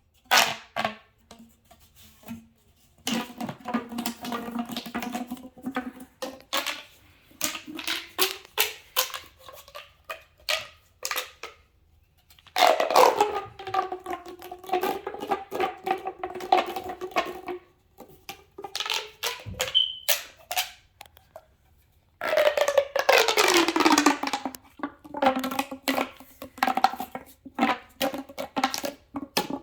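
Fidget toy worked by hand, giving fast runs of clicking with ringing tones that slide up and down, several falling steeply. It comes in bursts with short breaks.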